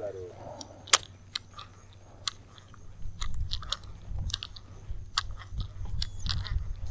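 Sharp, irregular clicks and crackles close to the microphone, the loudest about a second in, with a low rumble joining about three seconds in.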